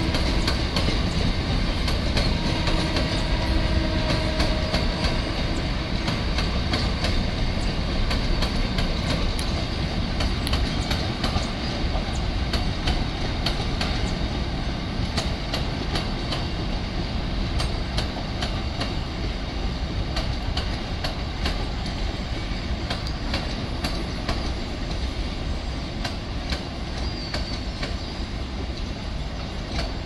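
Container flat wagons of a long freight train rolling past: a steady rumble of steel wheels on rail, with frequent sharp clicks as the wheels pass over rail joints, easing slightly toward the end.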